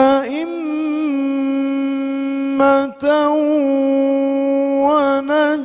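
A man reciting the Quran in a melodic, drawn-out style, holding long steady notes on the stretched vowels, with a short breath about two and a half seconds in before the next long note.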